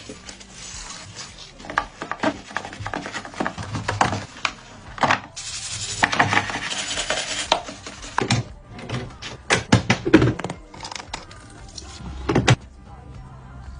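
Hands working on a washing machine during cleaning: a run of clicks, knocks and clatter from handling its parts, with a hissing stretch of about two seconds near the middle.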